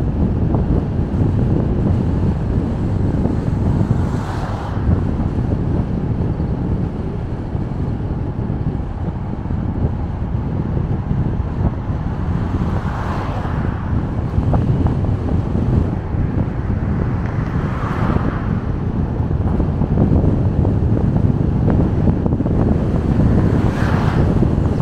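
Steady road and wind noise from a car driving along a road, with a short whoosh four times.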